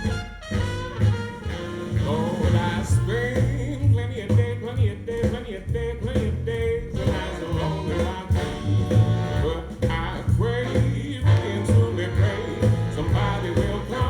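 Jazz recording played back over Wilson Audio loudspeakers driven by VTL amplifiers: an instrumental stretch with a strong, pulsing bass line under pitched instrumental lines.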